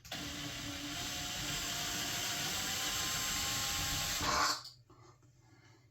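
Cordless power drill/driver running steadily for about four and a half seconds, backing out a long screw from a shower handle trim, then stopping suddenly.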